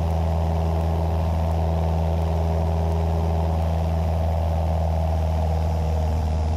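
Cessna 172's engine and propeller drone heard in the cabin, holding steady at climb power just after takeoff.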